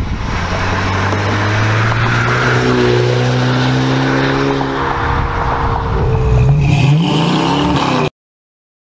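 Exhaust note of a 6th-gen Camaro's LTG 2.0-litre turbocharged four-cylinder through an MRT Version 2 stainless cat-back exhaust, the car driving toward and past. The engine note holds steady, then rises and falls near the end before cutting off suddenly.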